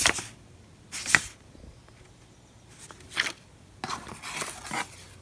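Short rustles and scrapes of small items being handled in an open gift box: single brief rustles at the start, about a second in and about three seconds in, then a longer patch of rustling a little before the end.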